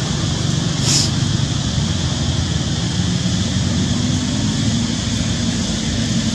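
Steady rumble of road traffic under an even outdoor hiss, with a brief high-pitched sound about a second in.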